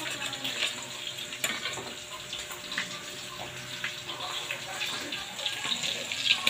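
Steady hiss of meat frying in a hot pan, with short clicks of metal tongs against a ceramic bowl of marinade.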